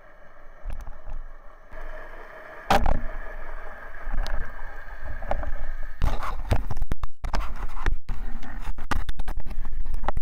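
Underwater sound picked up by a camera beside a speargun: a steady hum with a few sharp knocks, then from about halfway a run of rushing water and rapid knocks and scrapes against the camera housing as the diver handles the gun and the speared octopus.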